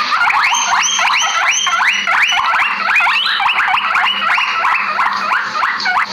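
Guinea pigs wheeking: a fast, unbroken run of high rising whistles, about three to four a second, each sweeping up and breaking off.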